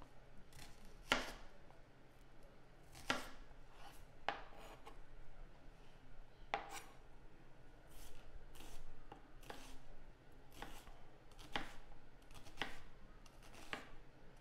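Knife dicing a whole onion on a cutting board: sharp taps of the blade striking the board, roughly one a second and unevenly spaced.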